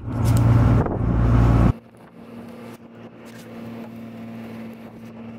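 Fishing boat underway: a loud low wind rumble on the microphone, cutting off abruptly after about a second and a half to a quieter steady drone of the boat's engine with a low hum.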